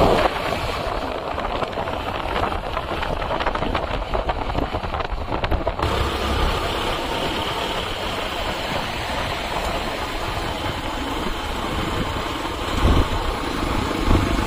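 Isuzu D-Max V-Cross pickup driving, its engine running steadily under a continuous rumble of road and wind noise.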